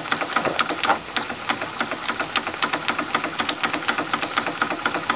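Wilesco D28 toy steam engine running fast on live steam, a rapid, even beat of steam exhaust and mechanical clatter from the piston, crank and flywheel over a steady hiss.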